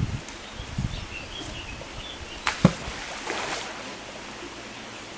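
Outdoor background noise with low thumps, a few short high chirps, and one sharp knock about two and a half seconds in.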